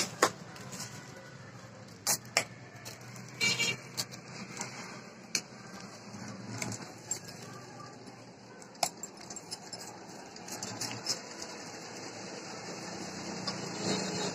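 Shiny metallic gift-wrapping paper and plastic packaging being handled and folded, crinkling and rustling with scattered sharp crackles, over a steady low background hum.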